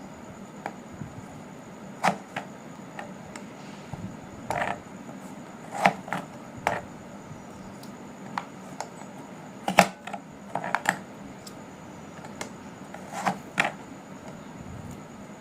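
A knife knocking on a wooden chopping board in irregular strokes, some single and some in quick clusters of two or three.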